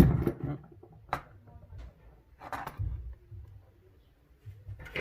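Small tools and parts being handled and set down on a workbench: a sharp knock, a short click about a second later, and a brief rustle about two and a half seconds in.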